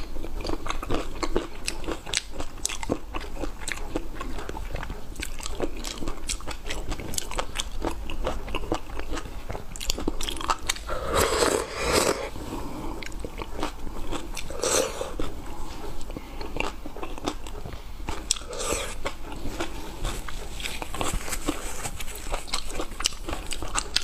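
Close-miked mukbang eating: steady wet chewing and lip smacking made of many small clicks, with three louder slurps about eleven, fifteen and nineteen seconds in as she sucks chili oil straight from the plate.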